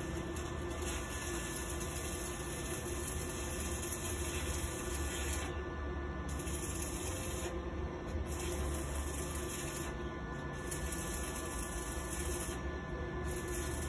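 Electric arc welding on a steel seat lock: a steady sizzling hiss of the arc with a low hum beneath it.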